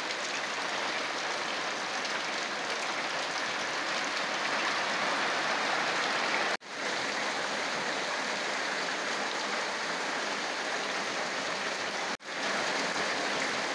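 Steady rain falling, an even hiss that cuts out for an instant twice.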